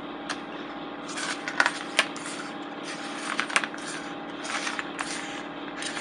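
Pages of a hardcover photobook being turned by hand: three papery rustles with a few sharp snaps of the stiff pages, the loudest about one and a half to two seconds in. A steady low hum runs underneath.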